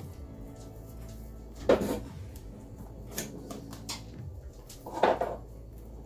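Kitchen handling while hulling strawberries: two loud knocks about three seconds apart, with a few lighter taps between, from the knife, the plastic cutting board and the plastic clamshell of strawberries.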